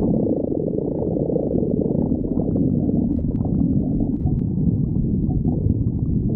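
Human stomach growling: a continuous low gurgling rumble with scattered small pops and crackles on top.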